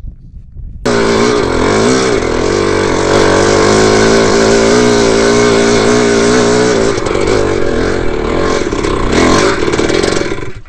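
Dirt bike engine running loud and close, its pitch wavering up and down with the throttle. It starts abruptly about a second in and cuts off suddenly just before the end.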